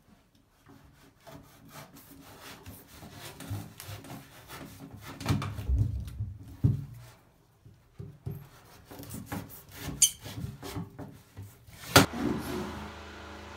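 Kitchen knife sawing through a raw yam tuber in irregular rasping strokes, with one sharp knock near the end.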